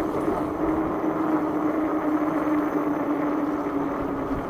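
ENGWE X26 fat-tyre e-bike riding over a rough dirt path: continuous tyre rumble with a steady hum from the drive that sinks slightly in pitch.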